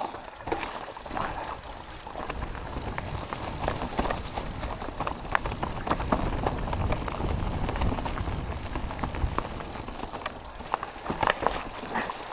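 Mountain bike descending a rocky, leaf-covered trail: tyres crunching and clattering over stones, with knocks and rattles from the bike throughout. A steady low rumble of wind on the camera microphone runs underneath, heavier in the middle.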